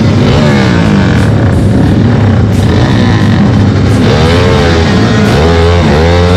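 Motorcycle engine revving, its pitch rising and falling again and again, with quicker swings in the second half.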